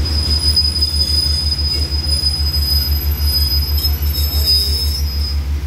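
Passenger train coaches rolling slowly to a stop with a single steady high-pitched squeal from the wheels and brakes, which cuts off shortly before the train halts. A low throbbing rumble runs underneath.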